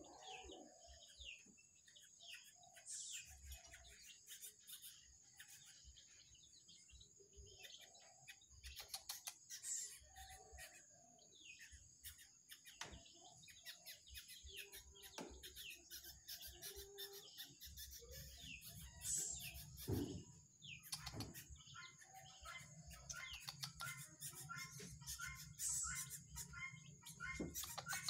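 Young birds chirping: many short, high, falling chirps repeated throughout, over a steady high-pitched hiss. A couple of soft knocks about two-thirds of the way through.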